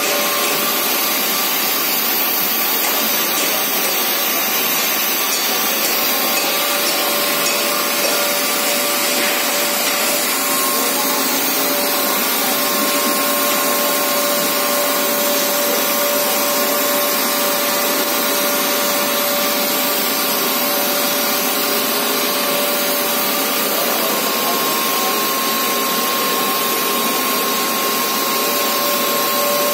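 HDPE pipe extrusion line machinery running: a steady mechanical whir with a couple of constant tones through it, unchanged throughout.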